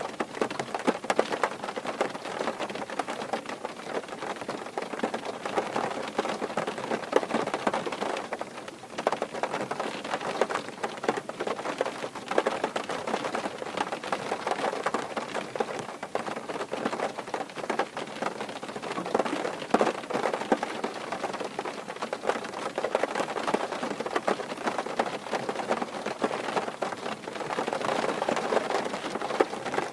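Steady rain drumming on a car's roof and body, heard from inside the car: a dense patter of countless drops, easing briefly about nine seconds in.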